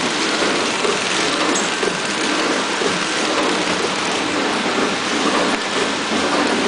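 Coretamp KT-250 flow-wrap packaging machine running steadily, a continuous loud mechanical clatter and hiss from its drive, infeed chain conveyor and sealing section as it wraps trays in film.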